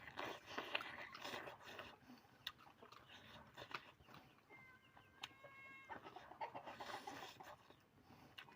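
Chickens clucking faintly, with a short pitched call about halfway through and a few light clicks and knocks.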